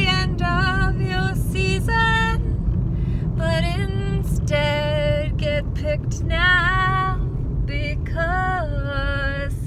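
A woman singing alone in held, gliding notes with short breaks between phrases, over the steady low rumble of road noise inside a moving car.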